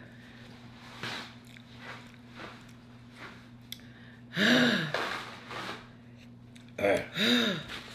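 Quiet chewing of fried chicken, then short wordless moans from a person suffering the heat of scorpion-pepper sauce: one about halfway, rising and falling in pitch, and two brief ones close together near the end.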